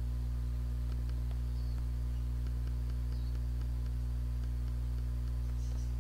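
Steady low electrical hum with a buzzy stack of overtones, with faint scattered clicks over it.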